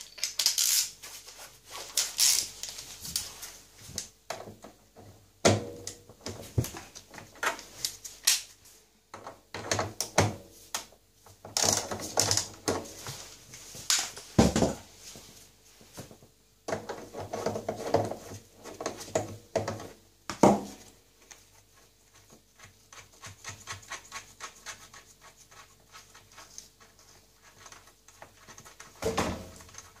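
Hand tools and gloved hands working on the heater element at the bottom of an Electra 17054E washing machine's plastic tub as it is being removed: irregular knocks, clanks and scrapes, then a long run of fast, light clicking in the last third.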